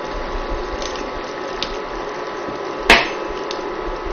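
Portable induction hob humming steadily with a faint whine under a pan of simmering mince, with a few faint ticks and one sharp knock about three seconds in, the loudest sound.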